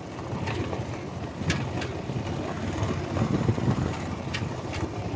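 Motorcycle running while ridden over a rough off-road track, with a few sharp knocks and rattles from the bumps.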